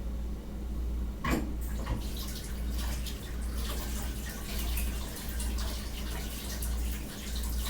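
Water running from a kitchen tap into a sink, turned on about a second in, splashing as sardines are rinsed under it to wash off hot sauce.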